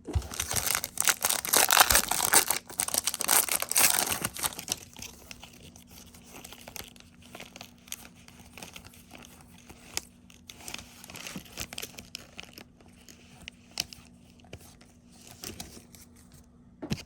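A football trading-card pack's wrapper being torn open and crinkled for about the first four seconds. After that come quieter, scattered crinkles and clicks as the wrapper and cards are handled.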